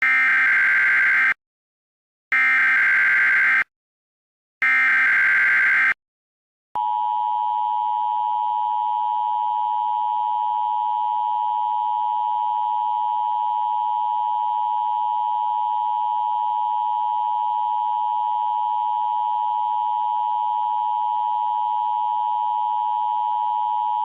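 Emergency Alert System opening: three bursts of digital SAME header data tones, each a little over a second long with short gaps, then the steady two-tone EAS attention signal (853 and 960 Hz together) starting about seven seconds in.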